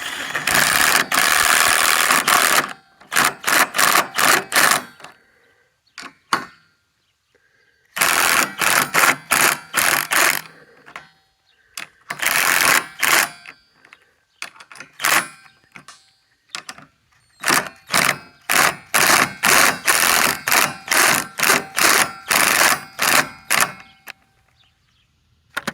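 Lag bolts being driven into wood with a power driver: several long runs of rapid rattling hammering, broken by series of short repeated bursts, a few a second, as each bolt is run down and seated.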